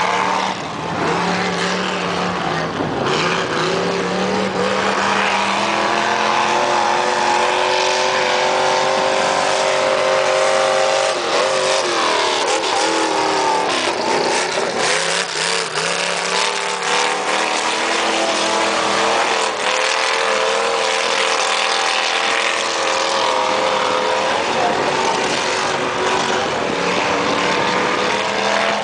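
Lifted 4x4 pickup truck's engine revving hard under full throttle on a dirt race course. The pitch climbs as it accelerates, dips and climbs back about halfway through, then holds a high, fairly steady note.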